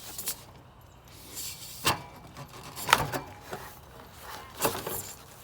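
Handling noises: four sharp knocks, the loudest near the middle, with some rubbing and scraping between them.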